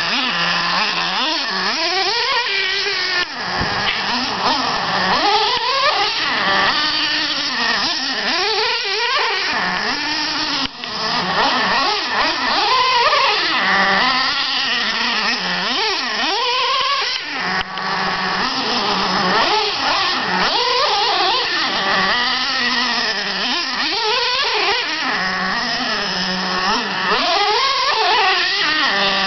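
Small nitro RC truck engine, the Traxxas Slayer 3.3's two-stroke glow engine, revving up and falling back again and again, with steadier lower running in the lulls between bursts.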